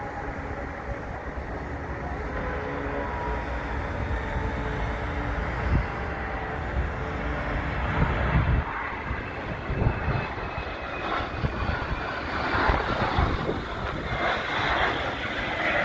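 Hawker 900XP business jet's twin turbofan engines whining as it comes in to land, growing louder over the second half. Gusts of wind buffet the microphone.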